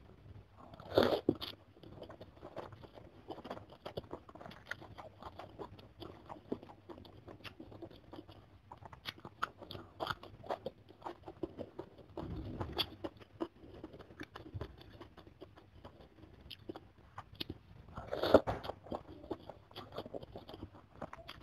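Close-miked eating of chicken soup with glass noodles and raw green chilies: wet chewing and crunching clicks throughout, with a louder slurp of noodles about a second in and another near the end.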